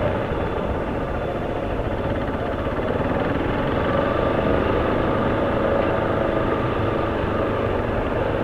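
Motorcycle running steadily while being ridden, its engine mixed with road and wind noise.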